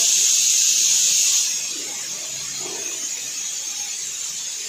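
A steady high-pitched hiss, louder for about the first second and a half, then dropping to a fainter level that carries on.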